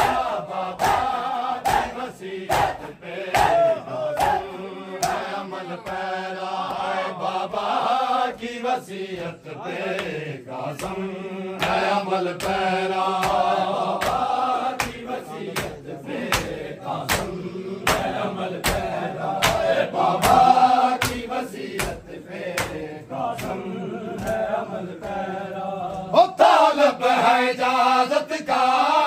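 Men chanting a noha, a Shia mourning lament, in unison, over a steady beat of hands slapping on bare chests in matam.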